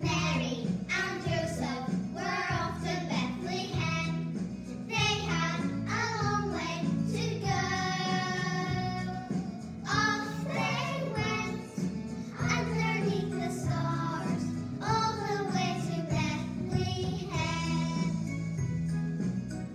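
A small group of young children singing a Christmas nativity song together over instrumental backing music.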